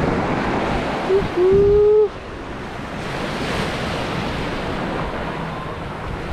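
Surf washing on the beach, with wind buffeting the microphone. About a second in, a brief loud tone, a short blip and then a note held for about half a second, sounds above it.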